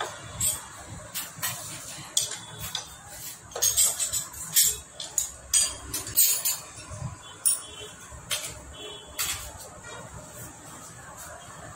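Irregular metallic clinks and taps of a hand tool against a Honda Activa engine's cylinder head, thickest in the middle.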